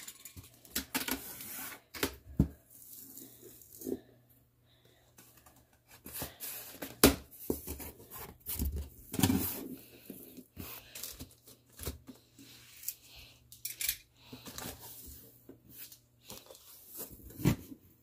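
A cardboard box being opened and unpacked by hand: irregular tearing, scraping and crinkling of cardboard flaps and plastic wrapping, with scattered knocks.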